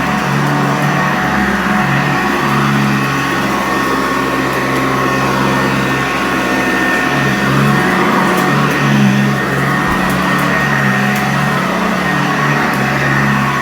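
Sanitaire upright vacuum cleaner running steadily on carpet with its brush roll turning, a constant motor hum that shifts slightly in pitch and strength as it is worked over the floor.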